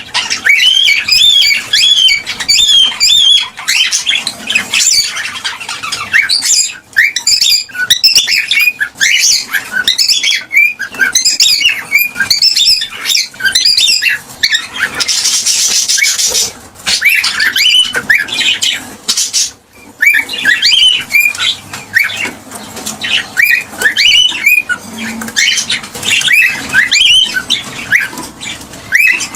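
Gray cockatiel chirping in rapid, overlapping runs of short chirps, with a brief harsh noisy burst about halfway through.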